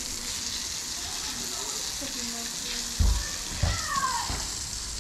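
Garden hose spraying water onto a wet concrete yard, a steady hiss. A few low thumps about three seconds in.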